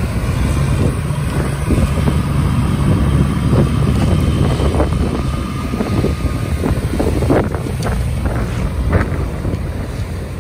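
Wind buffeting the microphone over breaking surf, with the diesel engine of a Caterpillar tractor working in the waves underneath.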